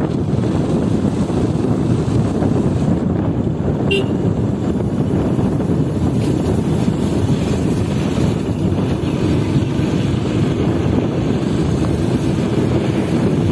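Steady wind rush and road noise on a helmet-mounted microphone on a moving motorcycle, with a short horn toot about four seconds in.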